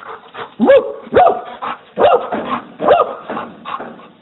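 Dog barking repeatedly, about six barks, each rising and then falling in pitch.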